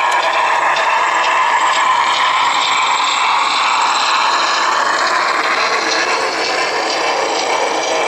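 HO-scale Southern Pacific cab-forward model steam locomotive and its freight cars running past on the track: a steady mechanical whirring and clatter of the drive and wheels on the rails.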